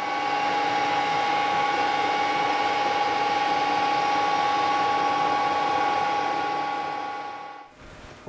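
Metal-working lathe running at a steady speed while turning down a wooden dowel, a steady whine over a hiss. It stops abruptly near the end.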